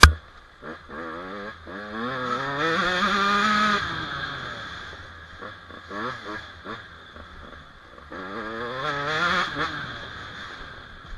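A small engine revving up, holding high for about a second and a half and dropping back, then revving up and down again about eight seconds in. A single sharp knock comes right at the start.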